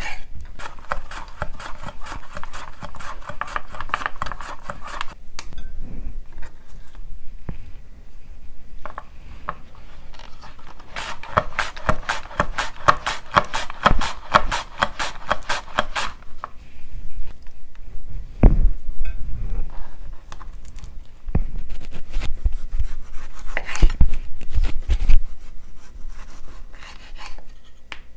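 Vegetables being sliced on a bamboo cutting board. There are two runs of quick, even rasping strokes, the longer one about halfway through, while a mandoline slicer is worked. In the second half a kitchen knife cuts down with separate heavy thuds against the board.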